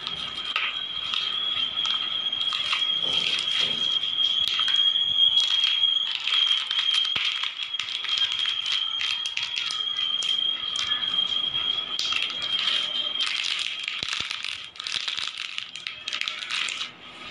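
Bubble wrap and plastic packaging crinkling and rattling as a clear plastic jewellery box is handled, in many short irregular crackles. Under it runs a steady high-pitched tone that stops about thirteen seconds in.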